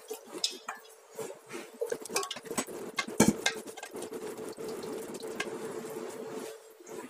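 Marinated meat chunks tipped from a steel bowl into a cooking pot, sliding and dropping onto the vegetables with wet rustling and small clinks of the bowl on the pot, and one sharp knock about three seconds in. Then gloved hands press and spread the meat in the pot.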